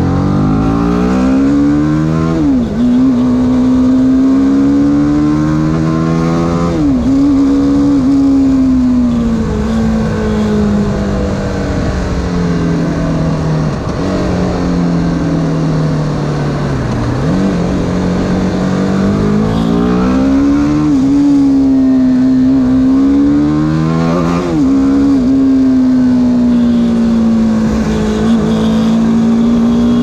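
BMW G310R's single-cylinder engine pulling hard through the gears: its pitch climbs and then drops sharply at each gear change, about five times, with a long slow fall in the middle as the throttle eases.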